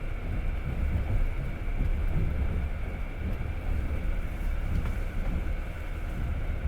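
Passenger train running on rails, heard from inside the carriage: a steady low rumble of the wheels and running gear.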